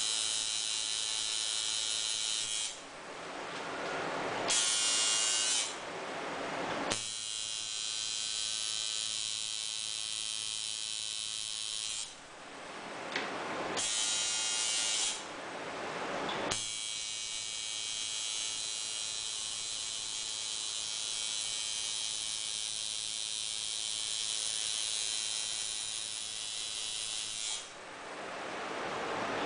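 Coil tattoo machine buzzing steadily as it tattoos skin. It runs in three long stretches and stops for a few seconds twice, then again near the end. Short hissing noises fill the pauses.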